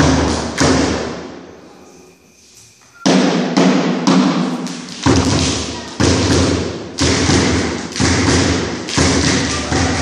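Heavy drum beats with a deep boom, ringing out in a reverberant hall: one beat fades away, a short pause follows, and then steady beats about one a second start about three seconds in.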